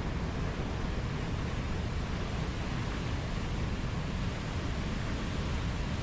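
Mountain waterfall rushing steadily: an even, unbroken noise of falling water, heaviest in the low end.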